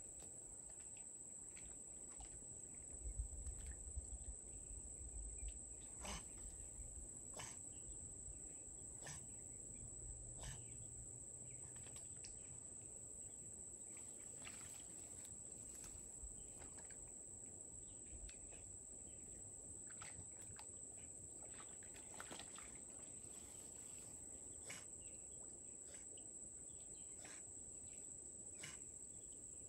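Insects droning steadily at one high pitch, with scattered short chirps and clicks over it. A low rumble with a few thumps comes and goes between about three and twelve seconds in.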